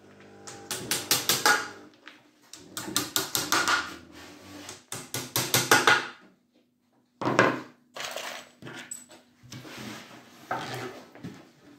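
Hammer tapping wooden dowels into the edge of a pine board, in several runs of quick light blows with short pauses between.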